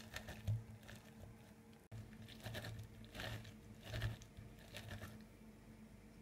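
A lemon stuffed with chopped ginger and garlic being pressed in a hand lemon squeezer: irregular soft squishing and crunching strokes, with a faint steady hum beneath.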